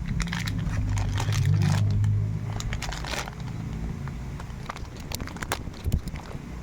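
Beyblade X toy packaging being handled and opened, with plastic and cardboard crinkling, rustling and clicking in irregular bursts. A low hum runs underneath for about the first two seconds.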